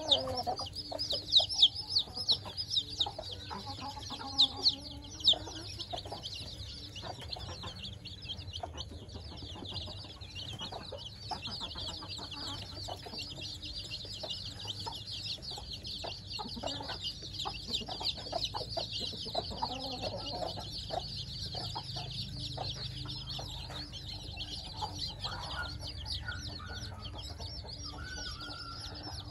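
A brood of one-week-old chicks peeping continuously, many high-pitched peeps overlapping, with a few louder, sharper peeps in the first five seconds.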